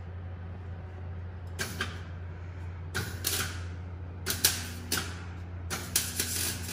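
A string of short scraping, rustling noises, loudest about four and a half seconds in, over a steady low hum.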